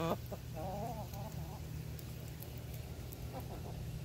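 Domestic hens vocalizing: a short, sharp call at the start, then a warbling, trilled call about half a second in, and faint soft calls near the end, over a steady low hum.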